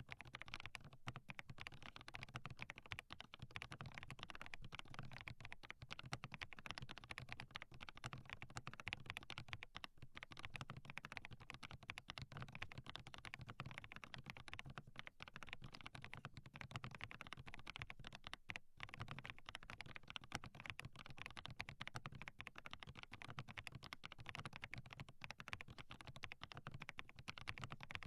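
Continuous fast typing on a hand-lubed 87-key custom mechanical keyboard with Haimu Smoky Pink V2 linear switches: a dense, unbroken stream of keystrokes.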